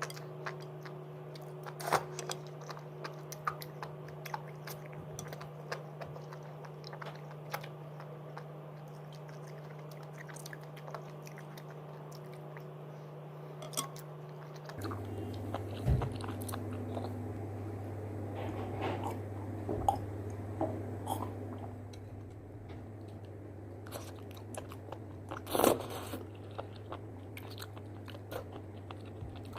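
Close-miked chewing and biting of enoki mushrooms in spicy sauce: irregular wet clicks and mouth sounds throughout, with a few louder bites.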